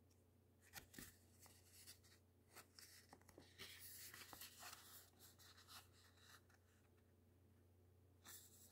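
Faint rustling and soft taps of paper as the pages of a small folded paper zine are turned by hand, busiest in the middle, with another rustle near the end. A steady low electrical hum runs underneath.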